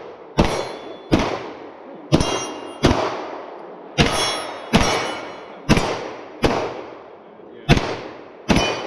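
Gunshots fired in steady succession, about ten shots roughly one a second, with steel targets ringing after several of them.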